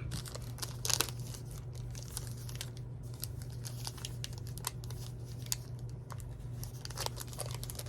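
Trading-card pack wrapper crinkling and tearing as it is opened by hand and the cards slid out, a run of small crackles with a louder rip about a second in.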